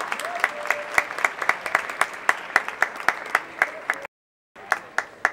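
Applause from a hall of legislators: sharp, evenly spaced claps about four a second over general clapping. The sound cuts out for half a second near the end, then a few last claps.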